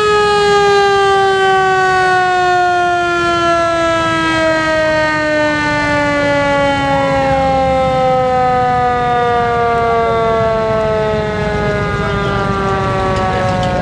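A vintage fire truck's roof-mounted siren winding down, its loud wail sliding slowly and steadily lower in pitch, over a low rumble.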